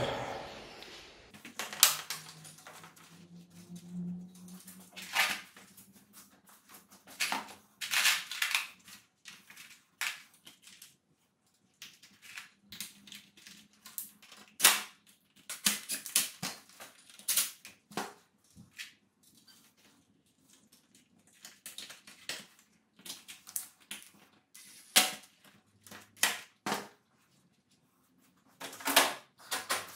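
Irregular sharp clicks and knocks of hand tools and motorcycle parts being handled, some in quick clusters, with quiet gaps between.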